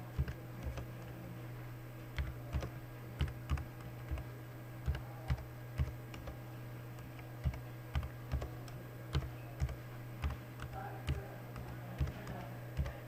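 Computer keyboard being typed on slowly and unevenly, single keystrokes at roughly two a second with short pauses. A steady low hum runs underneath.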